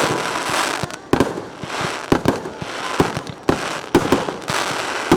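Aerial firework shells bursting in quick, irregular succession: sharp bangs about two or three a second, with crackling filling the gaps between them.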